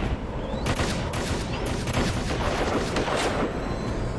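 Gunfire in a shootout: many shots in quick, irregular succession, overlapping one another.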